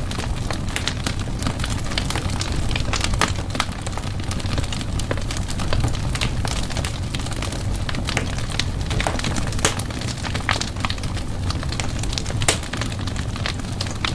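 Wood fire burning in a fireplace: a steady low rumble of flames with frequent irregular crackles and pops, one louder pop near the end.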